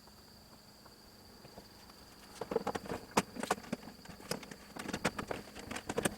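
Irregular light clicks, taps and small knocks of parts and tools being handled, starting about two and a half seconds in and going on unevenly, over a faint steady high whine.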